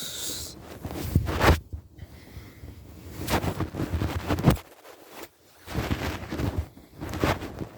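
A sleeping person snoring loudly: a string of rough, rattling snores, each a second or two long, with short pauses between breaths.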